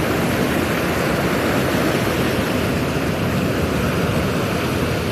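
Ocean waves washing onto the beach as a steady rush of surf.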